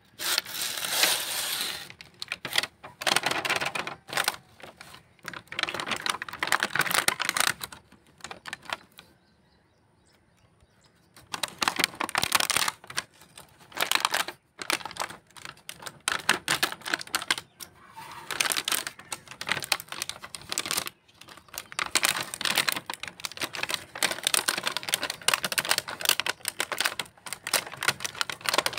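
Stiff clear plastic blister packaging crackling and clicking as fingers press it and peel open its plastic wrapping. It is a dense run of sharp crinkles and taps, with a pause of about two seconds around nine seconds in.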